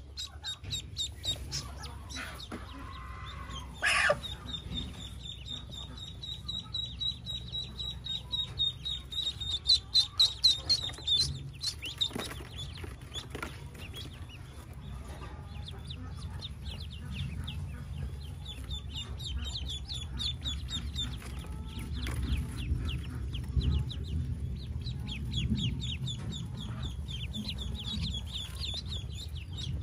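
Newly hatched Pekin ducklings peeping: a rapid, continuous stream of short, high peeps from many chicks at once, with a louder sudden sound about four seconds in.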